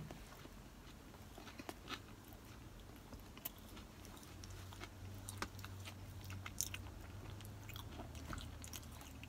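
Close-up chewing of a crispy chicken sandwich, with soft crunches and wet mouth clicks scattered irregularly through the chewing. A low steady hum comes in about halfway through.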